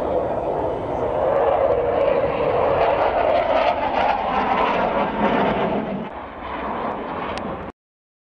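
Jet roar of MiG-29 fighters' twin turbofan engines as they manoeuvre overhead. The roar swells over the first few seconds, eases off about six seconds in, and cuts off suddenly near the end.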